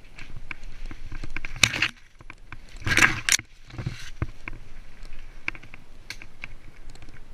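Mountain bike rattling over a rough dirt singletrack, with many sharp clicks and knocks from the chain and frame. Two louder rushes of noise come about a second and a half in and again about three seconds in.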